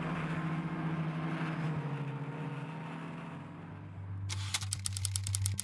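Snowmobile engine running at a steady pitch under the hiss of wind and blowing snow, fading over the first three seconds. About four seconds in, a fast clattering rattle of roughly ten clicks a second starts over a low hum.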